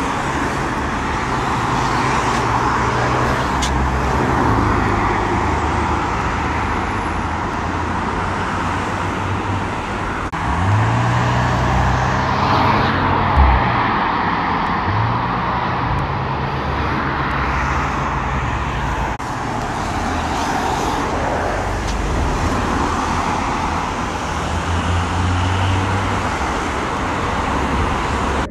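Dual-carriageway traffic: a steady rush of tyres and engines, with car engines rising in pitch as they accelerate up to speed, most strongly around the middle. There is one brief low thump just after halfway.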